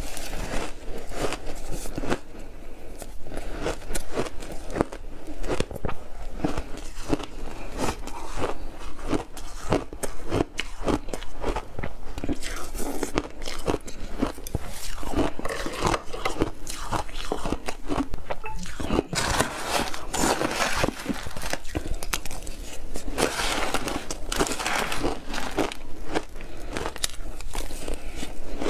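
Person crunching and chewing big mouthfuls of frozen purple block ice coated in milk powder: dense, rapid, irregular crunches.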